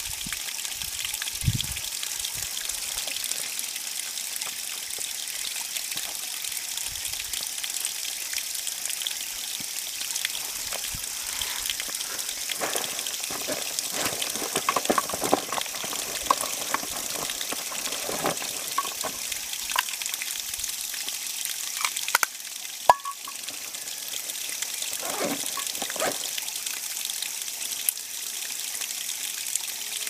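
A small brook spilling over rocks in a thin waterfall, splashing and trickling steadily, with livelier gurgles and splashes through the middle of the stretch. Cicadas drone steadily high above the water, and the drone dips briefly about two-thirds of the way through.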